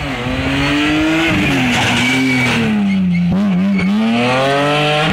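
Rally car engine running loud under throttle through a corner, its pitch climbing, dropping about a second in, wavering and dipping around three and a half seconds, then climbing again as the driver lifts and shifts gear.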